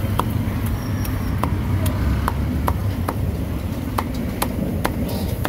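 Steel meat cleaver chopping roast meat on a thick wooden chopping block: sharp, regular knocks about two a second, over a steady low rumble of traffic.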